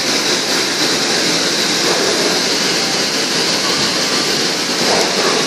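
Steady, loud rushing noise of commercial kitchen equipment, with a strong hiss over a lower roar and no change throughout.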